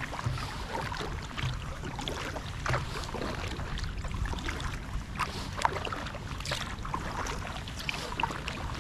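Kayak paddling on calm water: a double-bladed paddle dipping and pulling through the water stroke after stroke, with many small irregular drips and trickles falling off the blades.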